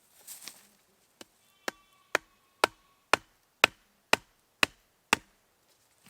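Nine sharp knocks in a row at a steady pace of about two a second, the first one fainter, like chopping or hammering on wood.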